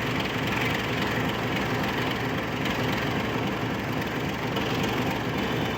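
Steady, even rumble of the Vande Bharat Express, an eight-coach electric train set, approaching to run through the station without stopping.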